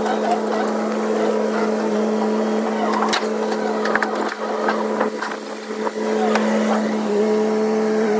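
Diesel engine of heavy machinery running steadily, with a few sharp knocks and clanks.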